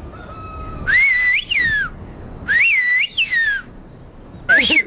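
Whistled speech of Antia, the village's whistled form of Greek (sfyria): three loud phrases, each rising, bending up sharply and falling away, about a second in, midway and near the end.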